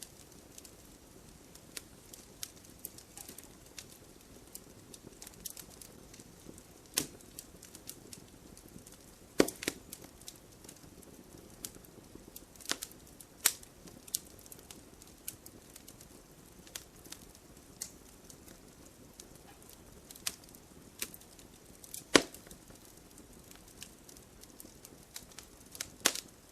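Burning firewood crackling: scattered sharp pops and snaps over a low steady hiss of the fire, a few louder cracks among them.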